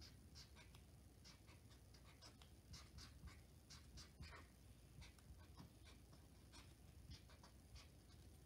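Faint strokes of a felt-tip marker drawing on sketchbook paper: a run of short, irregular scratchy swishes over near-silent room tone.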